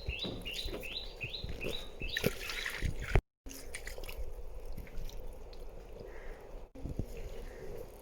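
Shallow water splashing and trickling as it is worked by hand. Over the first two seconds a bird calls a rapid run of short falling notes.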